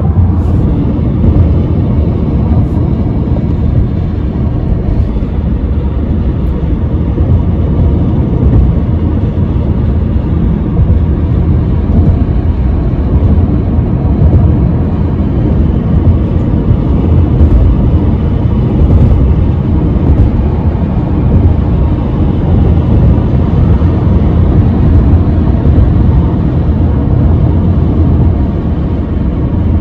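Steady low road rumble of a moving car heard from inside the cabin: tyre and engine noise at cruising speed.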